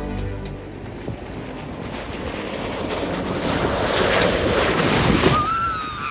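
A rushing spray of muddy water from an off-road truck ploughing through a mud puddle, building over about four seconds and falling away near the end.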